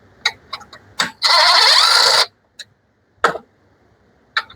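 Socket ratchet on a 12 mm muffler bolt: a few clicks, then about a second of fast ratcheting as the bolt is backed out, with a single metal knock a little after the middle.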